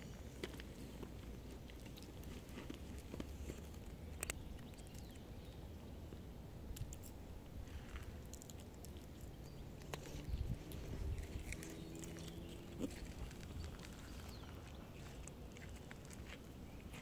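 A cat chewing dry kibble, with small irregular crunches.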